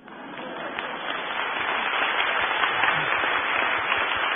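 Audience applauding, building over the first second or so and then holding steady.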